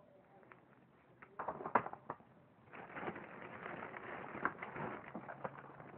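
Handling noise close to the microphone: a few knocks, then a steady rustle from about halfway in, as objects are moved about and reached for.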